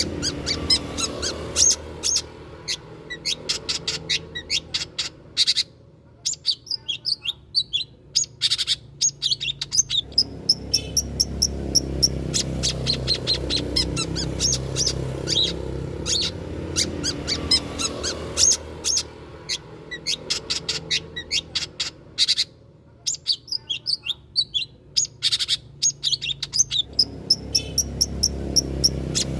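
Long-tailed shrike (cendet) singing: fast runs of sharp, high chirping notes that break off twice for a second or two. A steady low rumble runs underneath.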